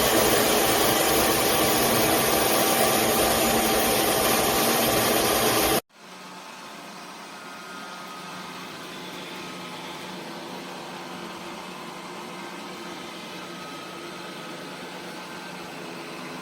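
Ultenic D10 robot vacuum running loudly and steadily. It cuts off suddenly about six seconds in, and a much quieter steady hum follows.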